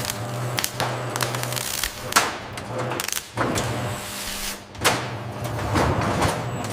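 Factory machinery running: a steady low hum with irregular sharp clanks and short hissing sweeps.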